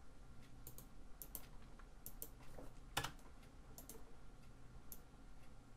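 Faint, irregular computer mouse clicks and keyboard keystrokes, about ten short clicks spread unevenly, over a faint steady low hum.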